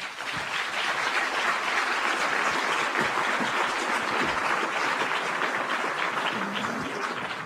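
Audience applauding, a steady patter of many hands that dies down near the end.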